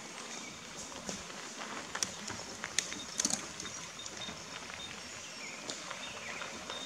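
Mountain bikes rolling over a gravel road, tyres crunching with scattered clicks as riders pass close by, most of them a couple of seconds in. Faint birdsong in the forest behind.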